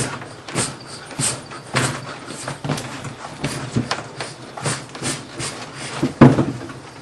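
Tools working a hard old remould motorcycle tyre on its rim: a run of short knocks and scrapes about twice a second, the loudest about six seconds in.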